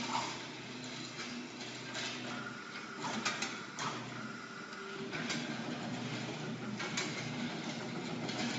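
CNC aluminium-coil bending machine running with a steady motor whine, broken now and then by sharp mechanical clicks and knocks as it feeds, grooves and bends the strip.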